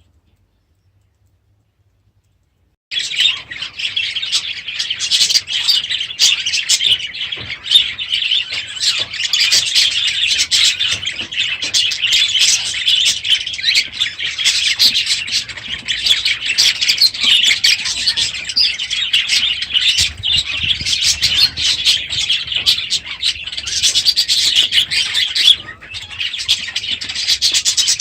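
A flock of budgerigars chattering and chirping together in a dense, continuous din, starting suddenly about three seconds in after near silence.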